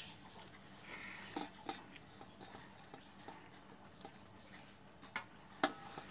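Eating by hand from a stainless steel plate: fingers mixing and pressing rice against the plate with soft chewing, heard as scattered small clicks and ticks, the sharpest a little before the end.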